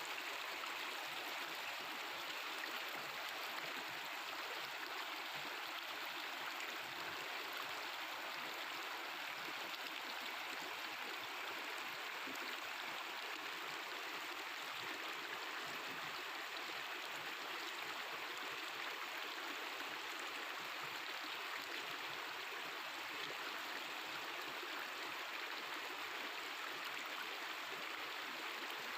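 Mountain river babbling and rushing over stones in a steady, unbroken flow.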